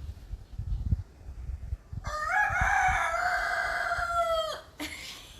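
A rooster crowing once, a single long call of about two and a half seconds that drops in pitch at the end, after a few soft low knocks.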